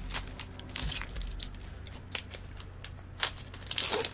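Trading card pack wrappers being torn open and crinkled by hand, with cards handled, in irregular crackles; the sharpest crackles come a little after three seconds and again just before the end.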